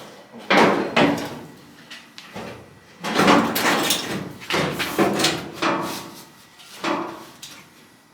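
Irregular loud bangs and knocks of sheet-metal truck body panels being handled and set in place, with a short ring after each. About eight strikes, with a cluster around three to four seconds in.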